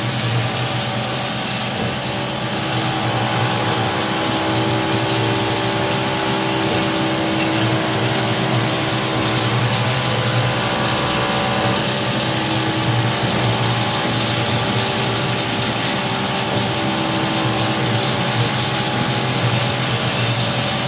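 Homemade CNC milling machine's spindle running while its end mill cuts a workpiece under flood coolant. A steady machine hum with several held tones over an even high hiss.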